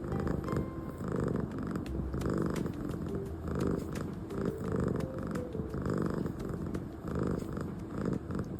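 Domestic cat purring steadily close to the microphone, the purr swelling and easing with each breath in and out. It is the purr of a contented cat being massaged.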